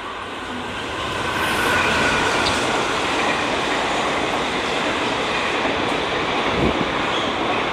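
Express train hauled by a WAP-4 electric locomotive passing close by: a steady rumble and rush of coaches over the rails that swells about a second in.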